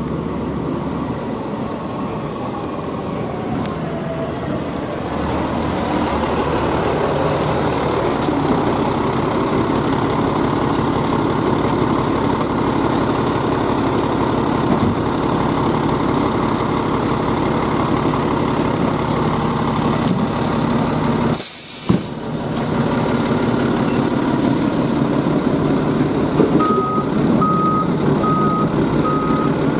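Fire engine's diesel running steadily, with a short sharp hiss of the air brakes about two-thirds of the way through. Near the end a reversing alarm starts beeping at an even pace as the rig backs up.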